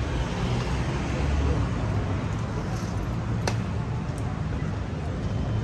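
City street traffic: a steady low rumble of passing cars, with one sharp click about halfway through.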